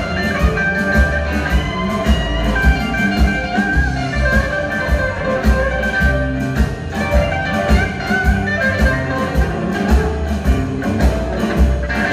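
Live blues band playing an instrumental passage: a Fender Telecaster electric guitar holding long notes over a steady bass and drum groove.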